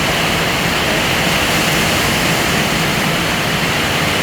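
Strong wind and heavy rain: a loud, steady rushing that does not let up.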